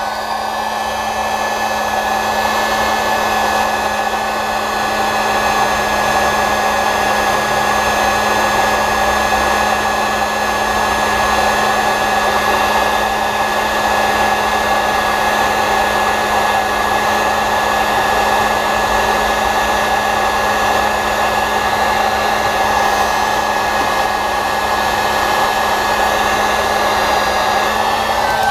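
Electric heat gun running steadily, its fan blowing with a constant hum, as it heats solder-seal wire connectors so the solder melts and the heat-shrink sleeve seals the joint.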